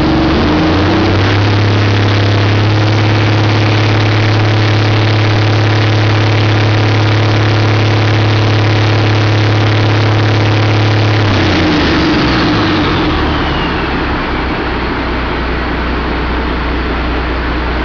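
Caterpillar C15 turbocharged inline-six diesel engine revving up from idle at the start and holding a steady high speed for about eleven seconds. It then drops back to idle, and a high turbo whine winds down as the engine slows.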